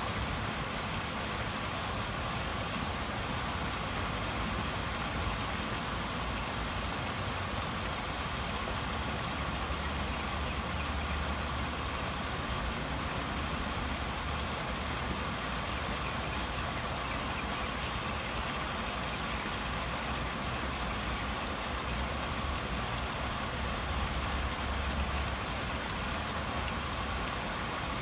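Paddlewheel pond aerator running steadily: a low motor hum under continuous splashing water.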